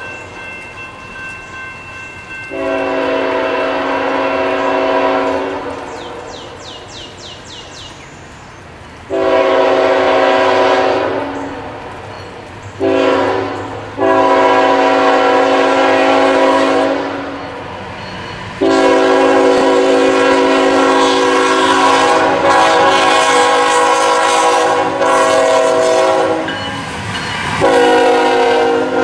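CSX freight locomotive's multi-chime air horn sounding the grade-crossing signal as the train approaches: two long blasts, a short one, then a long one held for about eight seconds, and another blast begins as the locomotive passes near the end. Train rumble continues underneath.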